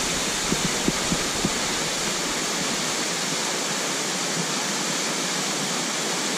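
Waterfall and the strong mountain stream below it rushing steadily. A few light knocks come about half a second to a second and a half in.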